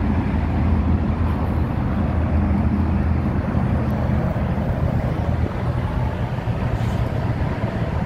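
John Deere 700K crawler dozer's diesel engine idling steadily, a constant low hum.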